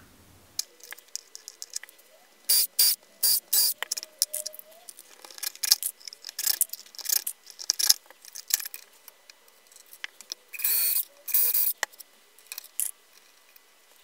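Hand work on electrical wiring: a run of sharp clicks and snips from tools handling wire, with two longer scraping sounds of about half a second each near the end.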